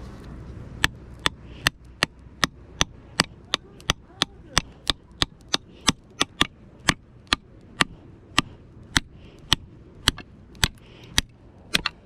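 A steady series of sharp knocks, about two and a half a second, starting about a second in.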